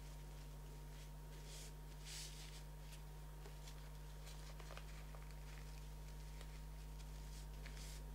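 Faint rustling of a paper napkin being folded and smoothed by hand, a few soft brushing swishes, the clearest about two seconds in and near the end, over a steady low electrical hum.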